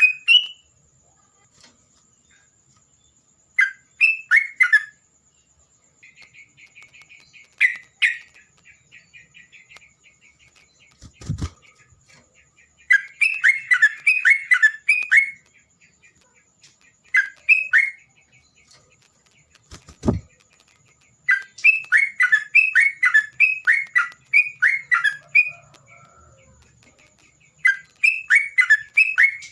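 Terocok songbird singing in repeated bursts of quick chattering notes, each phrase a second or two long with pauses between, and a softer buzzy chatter for a few seconds early on. Two dull thumps, about 11 and 20 seconds in, and a faint steady high whine run under the song.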